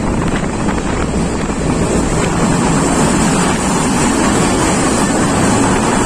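Steady running rumble of a moving passenger train, with wind blowing on the microphone.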